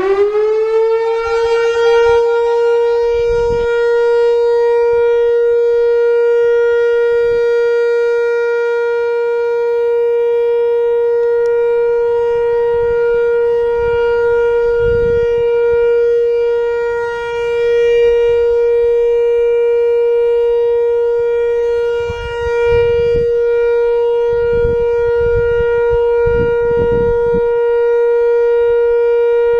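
Whelen WPS-4000-4 electronic outdoor warning siren sounding its steady Alert signal: the tone sweeps up over the first second or two, then holds one unwavering pitch. The siren is fairly quiet for its type, which the uploader puts down to its age and a couple of likely blown-out speaker drivers.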